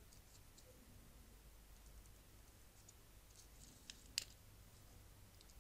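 Near silence with faint ticks and clicks of small spacers being handled and pushed onto the screws of a plastic Garmin Zumo XT cradle, with one sharper click about four seconds in.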